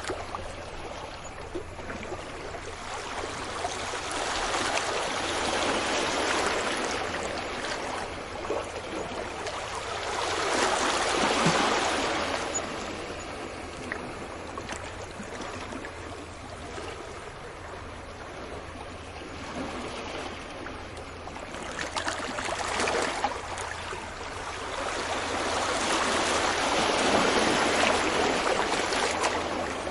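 Sea waves breaking on a beach and washing back, swelling and fading in slow surges every several seconds.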